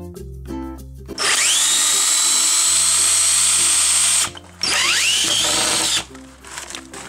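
Cordless drill driving long screws into a wooden board, in two runs: each begins with a rising whine as the motor spins up and then holds steady, the first about three seconds long, the second about a second and a half.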